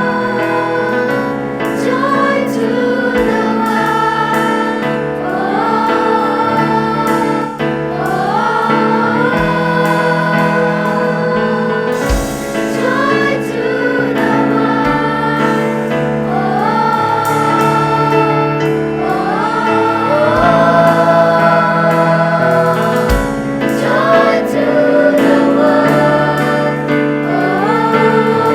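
School choir singing, in phrases that rise into held notes every couple of seconds.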